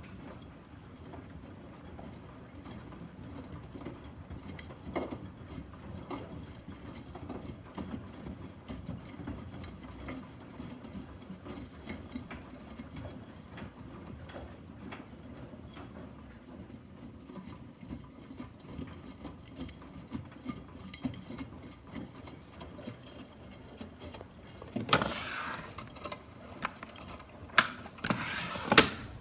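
Miele front-loading washing machines running a wash, a steady low mechanical rumble with scattered light clicks. Several sharp, louder knocks come near the end.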